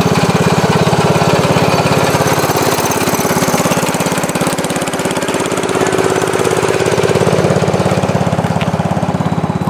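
A small gasoline engine running steadily with a fast, even firing beat.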